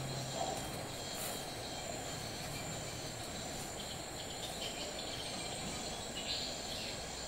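Tropical forest ambience: insects chirring in steady high tones, with a few short chirps toward the end, over a steady low hiss.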